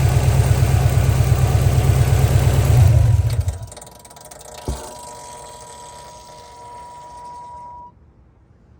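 Subaru EJ205 turbocharged flat-four idling, then switched off about three seconds in; the shop traced its abnormal noise to a failed turbocharger with shredded compressor blades and end play in the shaft. After the engine stops, a faint steady whine carries on for about four seconds, with one short knock, and then cuts off suddenly.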